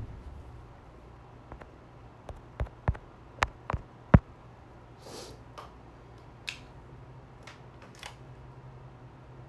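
Handling noise on the streaming phone: a quick run of sharp clicks and taps, the loudest about four seconds in, then a few soft rustles. A faint low hum comes in near the end.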